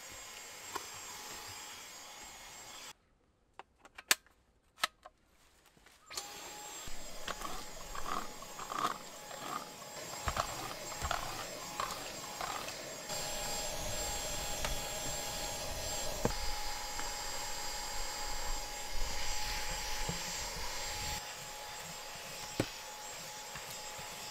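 Dyson Digital Slim cordless stick vacuum running with a steady high whine while vacuuming a car's floor carpet, the dirt and grit it picks up rattling through it at times. It falls silent for a few seconds about three seconds in, with a few sharp clicks, then runs again.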